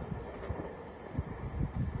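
Shiokaze limited express train rumbling past and fading away, with a few faint thumps from its wheels and wind on the microphone.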